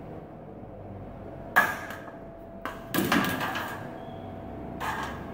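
Aviation snips cutting through a white glazing bead strip, with one sharp snap about a second and a half in. Then a few knocks and rattles as the long strip is handled.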